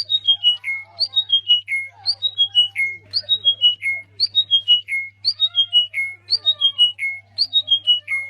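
A songbird repeating one phrase of about five clear notes stepping down in pitch, roughly once a second, with fainter chirps of other birds beneath and a steady low hum.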